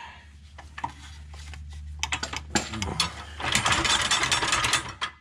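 A ratchet clicking in rapid runs as something is tightened, the clicks growing denser over the last couple of seconds, over a steady low hum.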